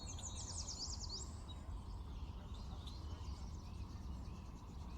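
A bird's quick trill of about ten high chirps near the start, then fainter chirps, over a faint steady low hum.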